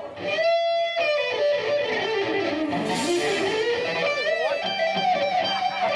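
Electric guitar lead solo: a held note, then a fast run of notes sweeping down and climbing back up, with bent, wavering notes and another held note near the end.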